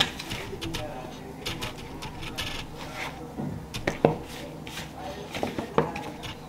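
Hands pressing and turning a marinated chicken piece in a steel plate of dry flour, coating it for frying: soft rubbing and patting of the flour, with a few sharper knocks against the plate in the second half.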